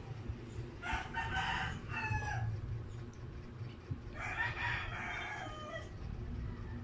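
Rooster crowing twice, about three seconds apart, each crow about a second and a half long and dropping in pitch at the end, over a steady low hum.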